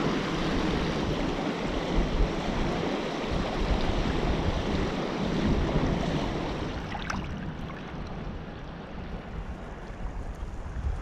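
Sea waves washing over rocks, with wind buffeting the microphone in gusts; the rush eases after about seven seconds.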